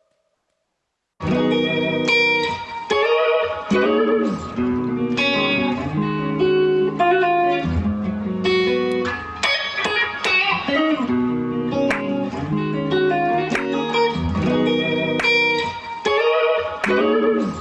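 Instrumental music led by plucked electric guitar, starting abruptly about a second in after a moment of silence, with no vocals.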